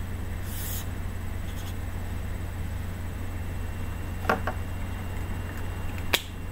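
Paper sheets being handled: a short rustle near the start, then a few light clicks and taps about four seconds in and a sharp click about six seconds in, over a steady low hum.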